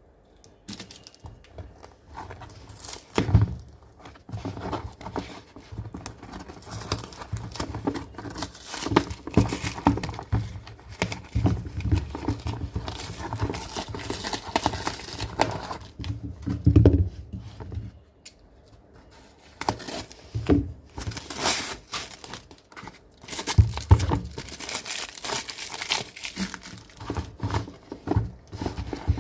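Packaging being handled and unwrapped: irregular crinkling and rustling of wrapping with tearing and small knocks, pausing for a couple of seconds about two-thirds of the way through.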